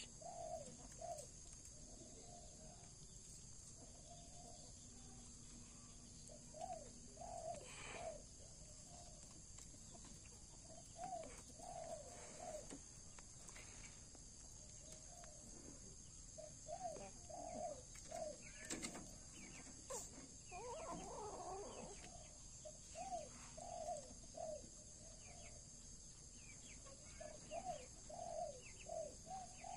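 Faint bird calls: short, arched calls coming in small groups every second or two.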